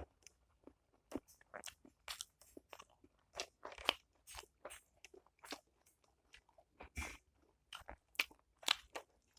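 Close-miked crunchy chewing and biting of food, a string of irregular crisp crunches about two a second, a few of them louder.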